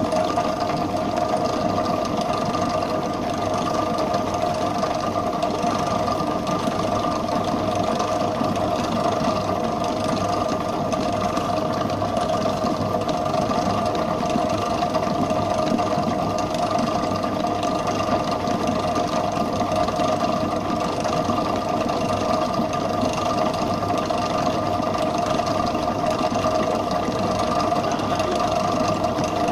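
Commercial stand mixer running steadily, its beater whipping butter cream icing in a steel bowl: an even motor whine that does not change.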